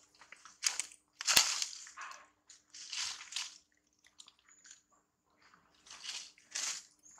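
A macaque chewing crunchy food: a run of crisp crunches, about one to two a second, the loudest about a second in, with a quieter stretch in the middle.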